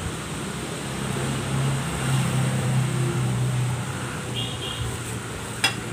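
A passing motor vehicle's engine, a low drone that swells over the first couple of seconds and fades away before the end. Near the end a knife clicks once against the stone cutting board.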